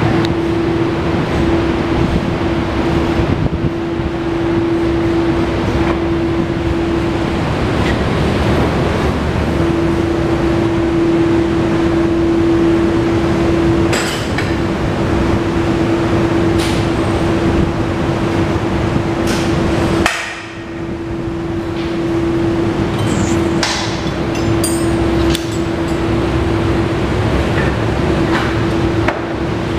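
Steady machine hum carrying one constant tone, with scattered metallic clinks and knocks; the hum briefly drops out about two-thirds of the way through.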